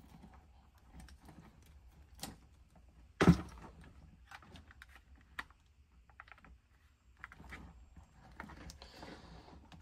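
Scattered light plastic clicks and rattles from a string of mini LED Christmas lights, plastic clothespins and a plastic light-repair tool being handled, with one sharper knock about three seconds in.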